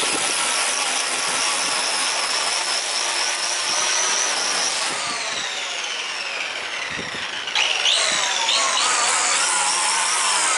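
Black & Decker 14-inch corded electric string trimmer running with a high motor whine as its line cuts grass. About five seconds in the trigger is let go and the motor winds down with falling pitch. Near the end it is switched on again several times in quick succession, spinning up with a rising whine each time, the repaired switch now engaging at each press.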